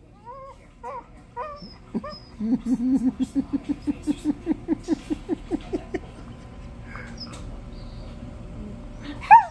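Dog whining: a few short whines, then a run of quick, rhythmic whimpers at about five a second, and one short loud yelp near the end.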